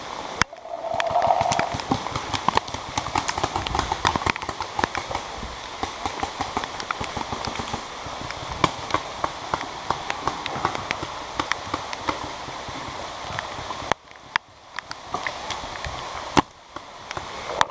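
Heavy rain with many sharp, irregular taps close to the microphone. The hiss drops away briefly twice near the end.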